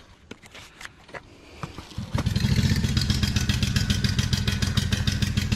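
A few faint clicks and light clatter, then about two seconds in an engine starts up and runs steadily and loudly with a fast, even putter.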